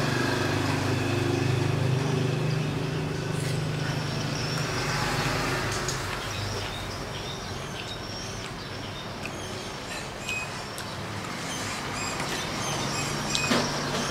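Eating sounds: a metal spoon clinking and scraping on a metal tray, and chewing of noodles and vegetables. A steady motor-vehicle engine hum sits underneath; it fades a few seconds in and comes back near the end.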